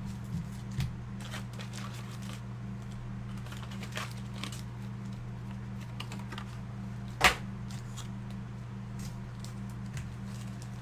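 Scattered light clicks and taps of trading cards and card-box packaging being handled on a table, with one sharper knock about seven seconds in, over a steady low hum.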